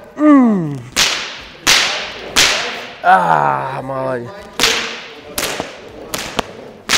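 A dog trainer's whip cracking about eight times, less than a second apart, each crack sharp and ringing briefly in the hall. The whip is worked as pressure on a shepherd dog while it grips a bite pillow. Two drawn-out vocal cries come between the cracks, one at the start and one about three seconds in.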